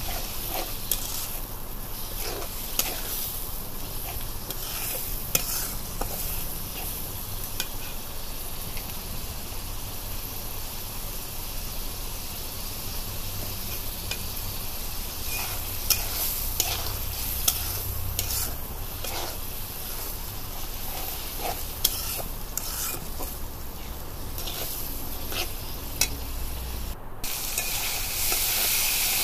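Shrimp sautéing in spiced oil in an iron karahi, sizzling steadily, while a metal spatula scrapes and clinks against the pan as it is stirred. The sizzle gets louder near the end.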